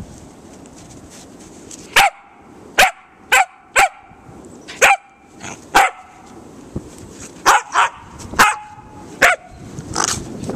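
American Eskimo puppy barking: eleven short, sharp, high barks in an uneven series, starting about two seconds in.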